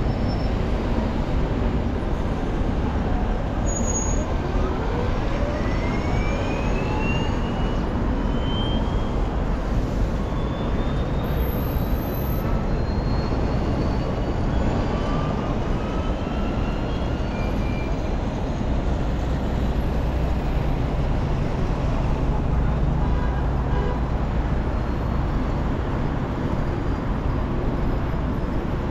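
Steady city road traffic from passing cars and buses, with a strong low rumble throughout. A few faint high whines rise in pitch a few seconds in.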